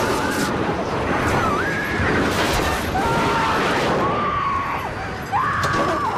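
Passengers screaming in long, held, wavering cries over the continuous roar and crashes of an airliner cabin breaking apart in an explosion. A fresh, louder scream starts about five seconds in.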